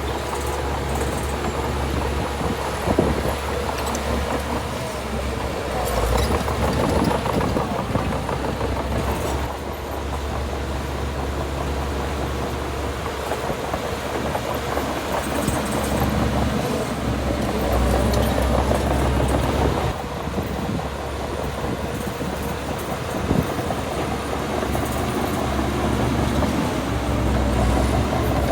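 Heavy earthmoving machinery's diesel engine running steadily with a deep drone, swelling and easing in level, with a few sharp knocks.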